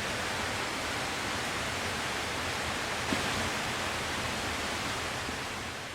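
Steady rushing of a stream flowing over rocks, with a single faint click about three seconds in; it begins to fade out near the end.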